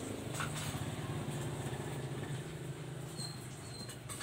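A steady low hum with a few light taps and rustles, as two cats paw at each other through a nylon mosquito net.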